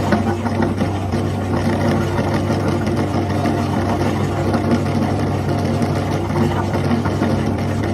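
Electric meat grinder running steadily under load, its motor giving a constant hum with a grainy churning over it.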